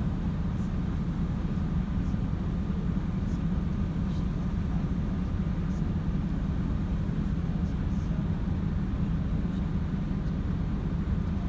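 Steady low hum of a car ferry's engine heard from on board, unchanging throughout.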